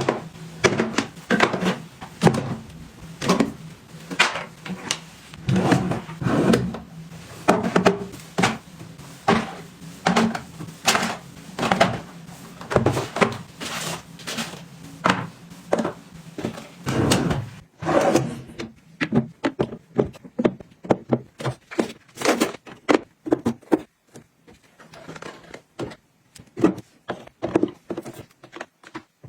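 Irregular taps, clicks and thunks of small items being handled and set down, one after another. Dense for most of the stretch, then sparser and quieter near the end.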